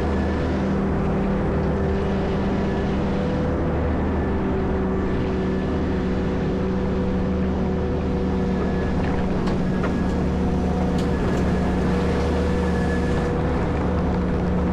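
Caterpillar 140M motor grader's diesel engine running steadily under load while plowing snow, with a few faint ticks near the middle.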